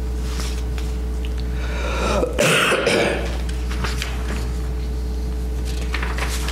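A person coughs about two and a half seconds in, over a steady low hum, with faint rustling of paper pages.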